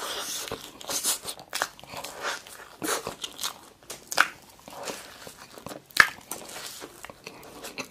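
Close-miked eating of a whipped-cream cake layered with chocolate cookies: irregular wet bites, lip smacks and chewing, with sharp clicks here and there, the loudest about six seconds in.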